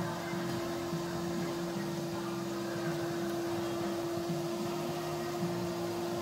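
Wet/dry shop vacuum running steadily with a constant motor whine, its hose sucking dirt and debris off a van's bare metal floor.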